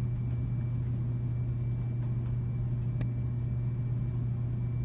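A steady low hum, with a few faint clicks of laptop keys being typed, the sharpest about three seconds in.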